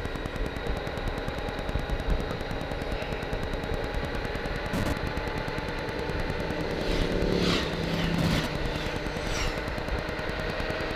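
Honda Gold Wing motorcycle running at steady cruising speed, its engine and wind noise mixed into a fast, fluttering rumble on the microphone. About two-thirds of the way through there is a brief run of high chirps.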